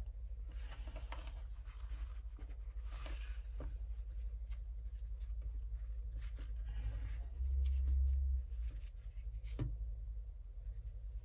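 Woven fabric and a fabric strap being handled and rustled on a sewing table, with soft scratching and a few small clicks, over a steady low hum. A brief louder low bump about eight seconds in.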